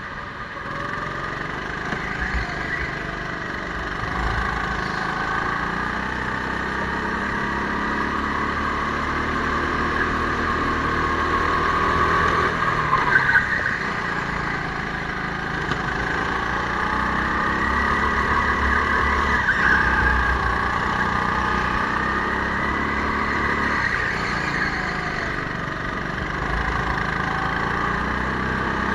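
Racing go-kart heard on board at speed, its motor whine rising and falling as it accelerates and slows through the corners.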